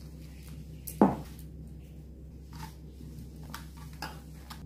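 Hands mixing and kneading flour and water into dough in a stainless steel bowl: faint squishing and scraping over a steady low hum. About a second in comes one short, loud sound that falls in pitch.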